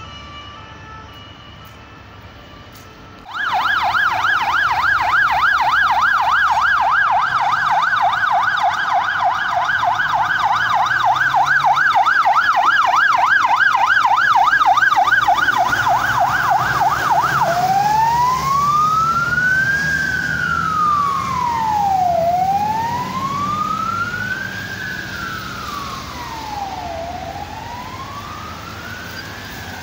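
Emergency siren on a military bomb-disposal patrol truck passing close by. After a few seconds of faint stepped siren tones it cuts in loud with a fast yelp sweeping up and down several times a second. About halfway through it switches to a slow wail that rises and falls roughly every five seconds, over the low sound of engine and traffic.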